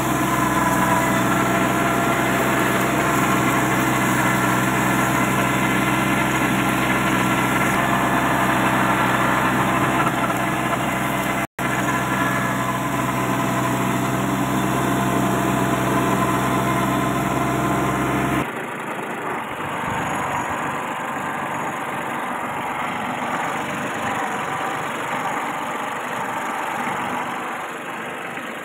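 Kubota 21 hp compact tractor's diesel engine running steadily under load, driving a rotavator through grass, with a split-second gap near the middle. About eighteen seconds in the steady engine note cuts off and a fainter, hissy sound takes its place.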